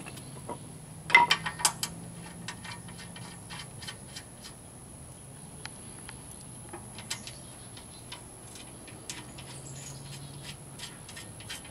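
Scattered light metallic clinks and taps of bolts and hand tools being handled while fitting a steel bumper, with a cluster of louder clinks about a second in.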